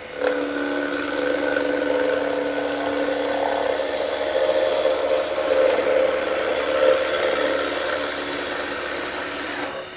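Roughing gouge cutting a spinning wooden spindle on a wood lathe: a steady rush of wood being sheared off, over the lathe's steady hum.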